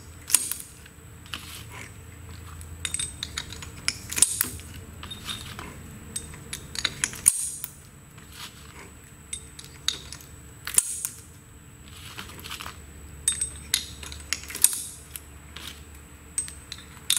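Metal jaws of a valve seat puller head clinking against one another and against the head's housing as they are picked up one at a time and slid under an O-ring into their groove. It comes as irregular sharp clicks and clinks, a few of them louder.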